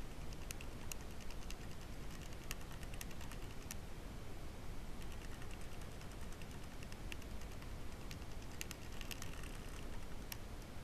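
Scattered light clicks and ticks, irregular, a few at a time with a short flurry near the end, over a steady hiss.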